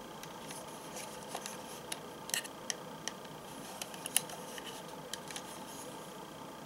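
Plastic clicks and taps from a Hopper Zecter toy belt buckle being handled and turned over in the hands: a scatter of small sharp clicks, the strongest about two and a half and four seconds in, over a faint steady room hum.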